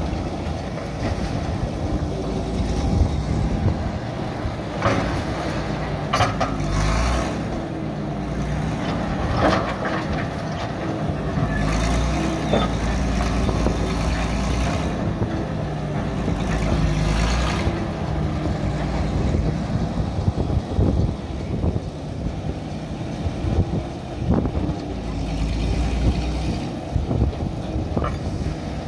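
Engine of a vintage Bay City crawler power shovel running steadily under load as it digs gravel and loads it into a steam wagon's bed, with irregular rattles and clanks from the bucket and the gravel.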